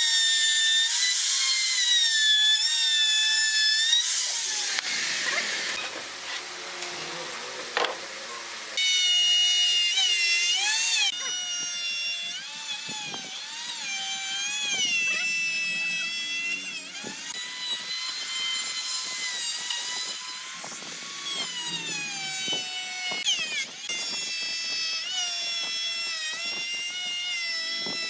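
Handheld electric plunge router cutting a profile into pine door-frame rails. It gives a high motor whine whose pitch keeps dipping and recovering as the bit bites into the wood. The whine drops back for a few seconds about a third of the way in.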